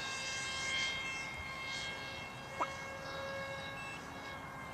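Electric motor and 6x4 propeller of a foam-board RC plane in flight, a steady high buzzing whine with a stack of overtones.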